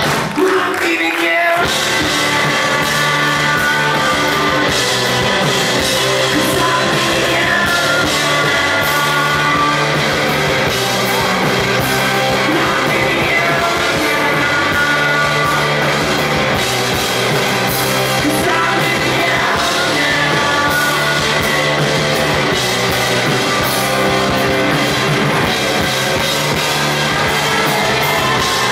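Rock band playing live, loud and continuous, with electric guitars and a drum kit, heard from within the audience. The low end drops out briefly about a second in before the full band carries on.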